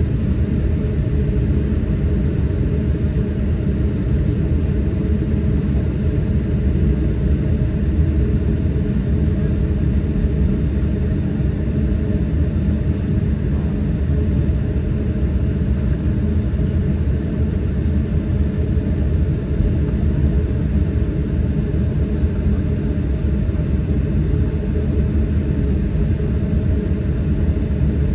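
Steady low rumble inside the cabin of a Boeing 737-900 taxiing, its CFM56 engines running at low power.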